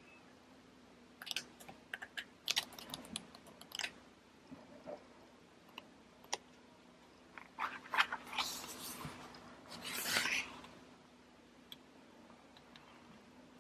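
Pages of a thick, coated tarot guidebook being handled and turned: clusters of crisp clicks and crinkles, with a longer rustling swish about ten seconds in.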